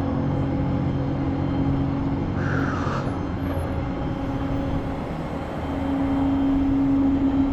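A vehicle engine running steadily, growing louder in the last couple of seconds, with a short hiss about two and a half seconds in.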